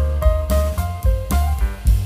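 Background music: drums and a heavy bass under a melody of short, stepping notes.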